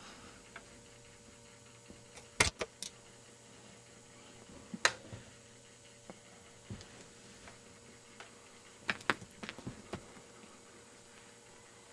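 A few sharp taps and clicks over a faint steady hum: three in quick succession a couple of seconds in, a single one around the middle, and a cluster of several about three-quarters through.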